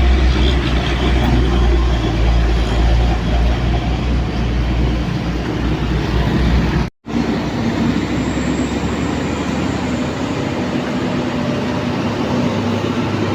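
Heavy vehicle engines labouring up a steep grade with a deep rumble over steady traffic noise. The sound drops out for an instant about seven seconds in, then comes back with less of the low rumble.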